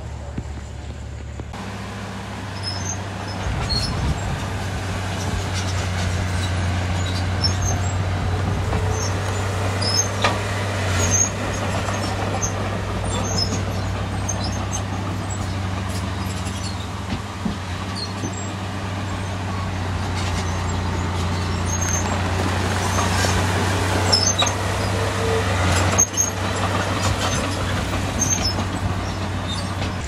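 Heavy diesel engine of earthmoving equipment running steadily under load, with many short high-pitched squeaks and clinks scattered over it. It grows louder about three seconds in.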